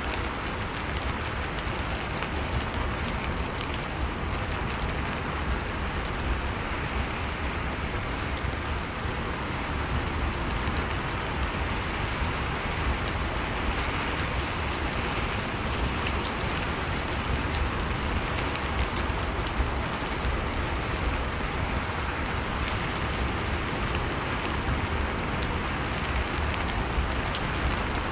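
Steady rain falling: a dense, even hiss of rain with faint scattered drop ticks and a low rumble underneath.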